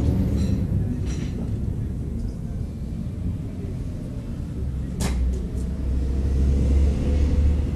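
Steady low outdoor rumble that swells in the second half, with one sharp click about five seconds in.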